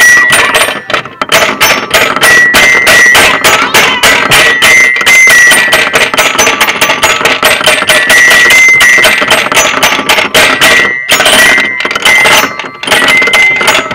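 Playground piano panel, its keys pressed over and over in quick succession: a fast run of ringing notes, several a second, with a brief break about eleven seconds in.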